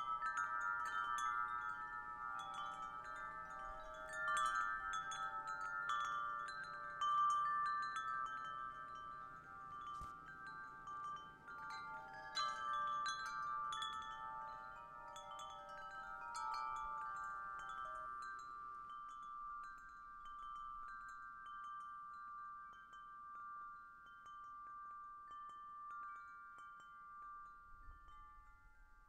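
Metal tube wind chimes struck by the wind, several pitched tones ringing and overlapping. The strikes thin out about two-thirds of the way through, leaving a single high tone ringing on and slowly fading.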